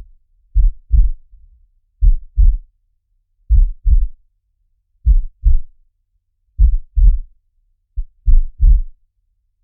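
Slow human heartbeat sound effect: six deep double thumps (lub-dub), one pair about every second and a half.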